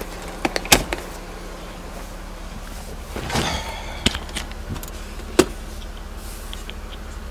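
Sharp clicks and knocks of hands handling a car's plastic interior trim and seat controls, the loudest just under a second in, with a short creaking rub about three seconds in and another click a little after five seconds. A steady low hum runs underneath.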